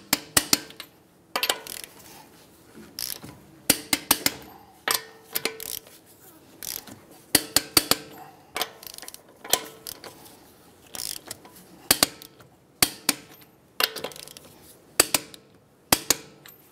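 Torque wrench on a 22 mm socket ratcheting in short groups of sharp clicks as the wheel's lug nuts are tightened to 94 foot-pounds, one nut after another.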